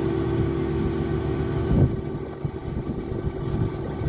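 An engine running steady and loud, with a sudden thump a little under two seconds in, after which the low sound turns choppy and uneven.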